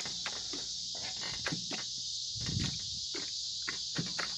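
Crickets chirring steadily, with scattered soft crackles and pops from the corroded battery terminals soaking in cleaner, which the owner takes for the acid in the battery. There is a dull thump about two and a half seconds in.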